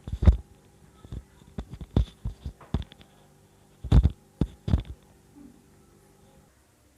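About ten dull knocks and clatters of cooking utensils being handled, the loudest near the start and around four seconds in, over a faint steady hum that stops near the end.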